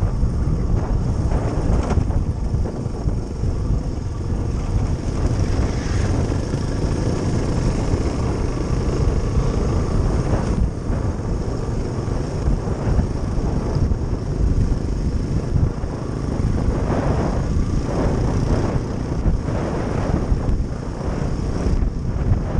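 Suzuki DR350SE single-cylinder four-stroke trail bike engine running steadily under way on a dirt track, heard under heavy wind buffeting on the microphone.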